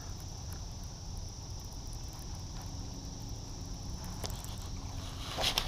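A steady, high-pitched chorus of insects, over a low outdoor rumble, with a single faint click about four seconds in.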